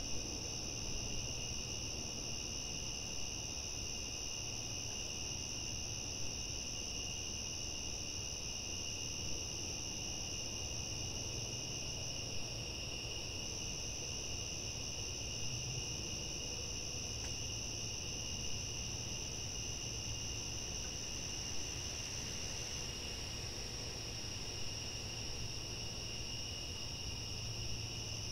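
Crickets chirring at night in a steady, unbroken high-pitched trill, with a low steady rumble beneath.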